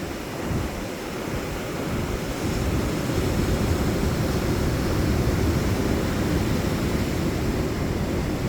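Sea surf washing onto a sandy beach: a continuous low rushing that swells louder about two to three seconds in.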